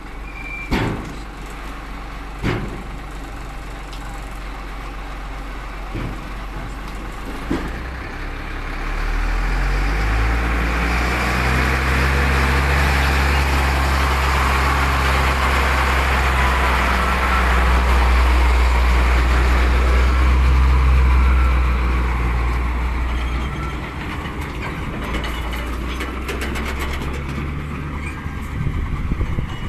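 Diesel engine of a Sinotruk Howo dump truck running close by. It grows much louder from about eight seconds in, is loudest about two-thirds of the way through, and then eases off. A few sharp knocks come in the first eight seconds.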